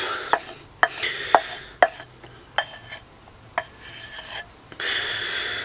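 A wooden spoon scraping mashed potato out of a glass mixing bowl into a metal cooking pot, with about six sharp taps of the spoon spread through it and a longer scrape near the end.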